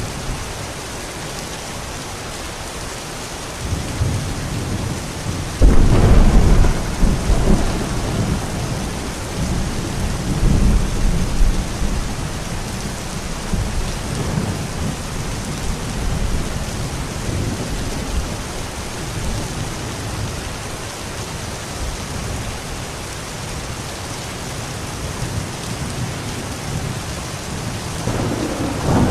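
Steady rain hissing throughout, with thunder rolling in: a low rumble builds about four seconds in, breaks into a loud crack near six seconds, and rolls on in waves for several seconds before fading back under the rain. Another rumble begins near the end.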